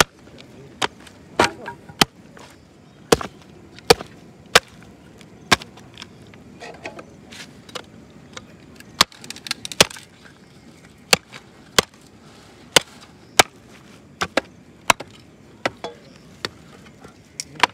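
Machete chopping a raw pig's head on a wooden block, cutting into the skull: sharp, irregular strikes about once a second, a few coming in quick pairs.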